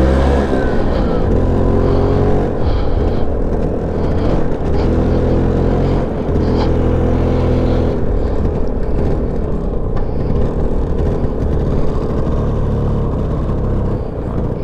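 Vintage two-stroke scooter engine running under the rider, its pitch rising and falling several times as the throttle opens and closes.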